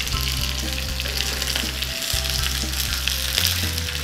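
Curry leaves, dried red chillies and mustard seeds sizzling and crackling in hot coconut oil in a frying pan: a tempering just after the leaves go into the smoking oil. The sizzle is a dense steady hiss with many small crackles through it.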